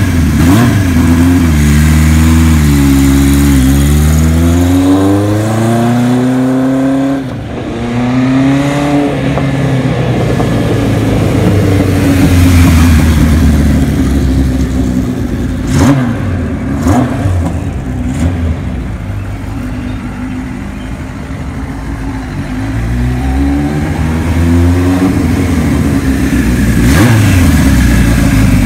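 A 1975 Kawasaki Z1 900's air-cooled inline-four engine on a ride. It revs with its pitch falling and rising, with a short sharp drop in sound about seven seconds in. It then grows softer as the bike moves off, and rises and gets louder again near the end as the bike comes back.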